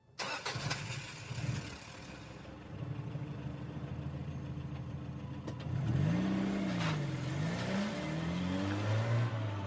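A car's engine and road noise as picked up by a dashcam's microphone inside the cabin: a steady low hum with a few clicks at the start, then about six seconds in the engine note rises and falls in pitch several times as the car accelerates.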